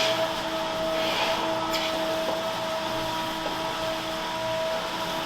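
Steady mechanical hum of milking-parlor equipment, several held tones over a hiss, with a faint throb about once a second and a short hiss near the middle.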